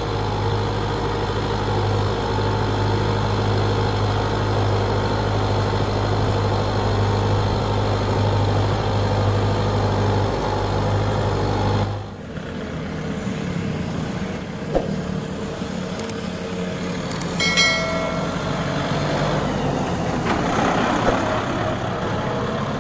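Kubota MU5501 tractor's four-cylinder diesel engine running steadily. About twelve seconds in, the sound switches abruptly to a lighter, noisier engine sound, with a brief high tone near the end.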